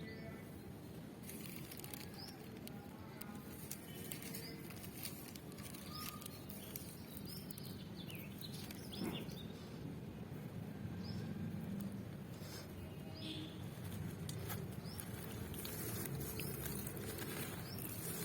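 Charcoal blocks being crumbled and crushed by hand: a continuous dry, gritty crackle with scattered small snaps.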